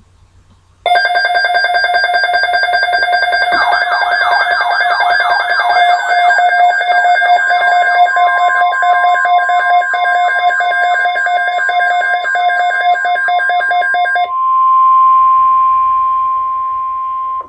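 A weather radio receiver's electronic alarm: a shrill, multi-tone pulsing alarm that starts abruptly about a second in and sounds for about thirteen seconds. It then cuts out, leaving the steady 1050 Hz NOAA Weather Radio alert tone alone for about three seconds, the tone that precedes a broadcast watch or warning message.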